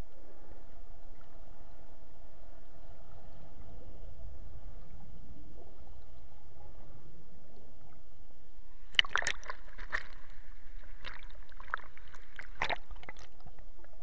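Creek water heard underwater by a submerged camera: a steady low rush of flowing water, then from about nine seconds in a run of sharp clicks and crackles from churning air bubbles near the surface.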